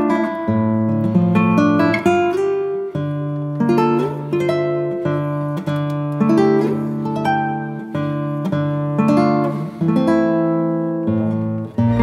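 Background music: acoustic guitar, notes plucked one after another and left to ring.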